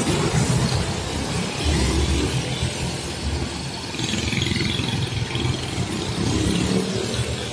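Road traffic passing close: an intercity coach bus goes right by with its engine running, then a minibus, motorcycles and a car drive past.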